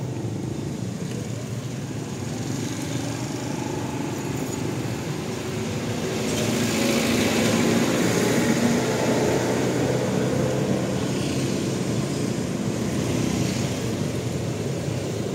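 Motor vehicle traffic: a steady engine hum, swelling louder about six seconds in as vehicles pass, then easing off.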